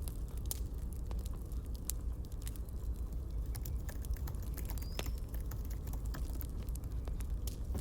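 Campfire crackling: irregular sharp pops and snaps of burning wood over a steady low rumble of the flames, with a brief high squeak about five seconds in.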